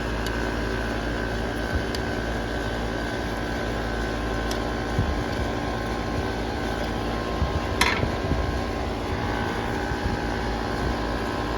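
Outdoor air-conditioning condensing unit running with a steady hum, with a few faint ticks and one sharp click about eight seconds in.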